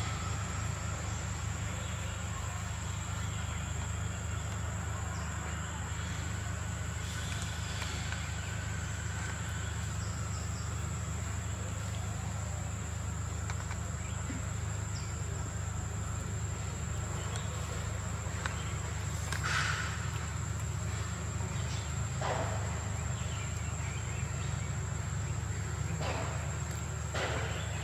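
Steady, high-pitched insect drone outdoors, one unbroken tone, over a steady low rumble, with a few brief faint sounds about two-thirds of the way in and near the end.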